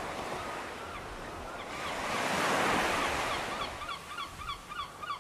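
Steady outdoor rushing noise that swells about two seconds in and then eases off. In the second half a bird calls in a quick run of short chirps, about four to five a second.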